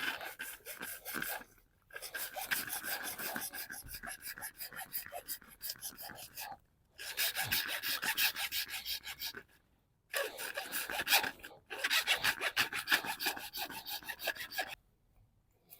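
Rapid, rhythmic rasping of a hand tool working on the plastic housing of the car's alarm siren unit to open it. It comes in five runs separated by short pauses.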